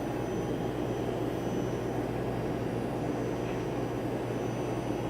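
Cough Assist (mechanical insufflation-exsufflation) machine's blower running with a steady airy hum, switched on and waiting between cycles of the therapy.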